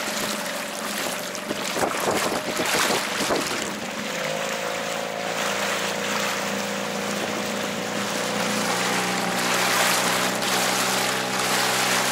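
Mercury 3.3 two-stroke outboard motor running steadily at low throttle while being run in, pushing a small inflatable boat, with water rushing past and wind on the microphone. About four seconds in, the engine note rises a little and grows fuller.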